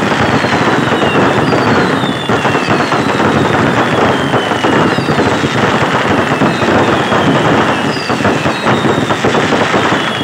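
Fireworks display of the Kerala vedikettu kind, going off in a dense, continuous barrage of crackling and rapid bangs. Overlapping whistles falling in pitch recur about once a second.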